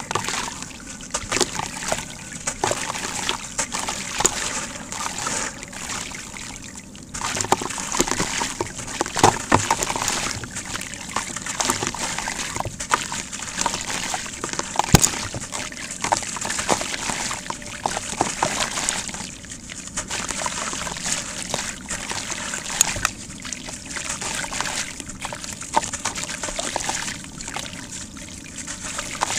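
A water-soaked sand-cement ball being squeezed and crumbled by hand, with gritty crackling and grit and wet chunks splashing and trickling into water in a plastic tub. It eases off briefly a few seconds in and again about two-thirds of the way through.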